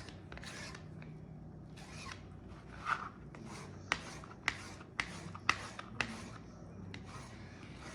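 Kitchen knife slicing a ham steak: repeated rasping strokes through the meat, with sharp taps of the blade about twice a second in the middle.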